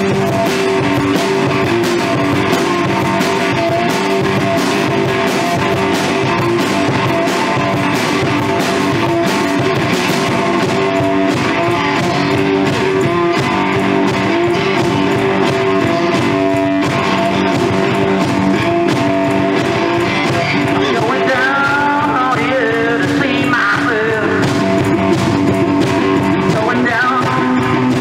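One-man band playing garage blues: an amplified guitar riff over a steady bass drum and cymbal beat, with a pitched voice-like line sliding about in the second half.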